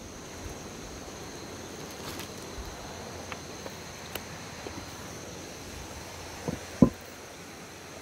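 Steady high chirring of night insects, with scattered light clicks and taps. Two sharp knocks come close together near the end, the second the loudest.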